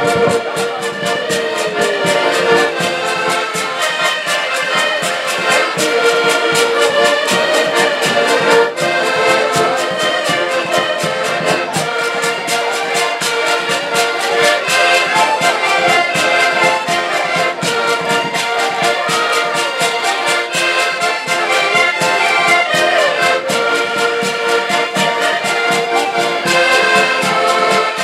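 An ensemble of diatonic button accordions (Portuguese concertinas) playing a traditional tune together, with a steady rhythmic pulse from the bellows and bass chords.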